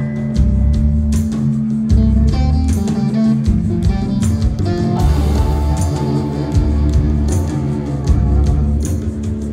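A live rock band plays: electric guitar, bass guitar and drum kit, the drums keeping a steady beat.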